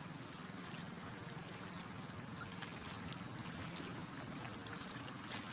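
Water sloshing and lapping against the hull of a small boat under way, steady throughout, with a low steady hum underneath.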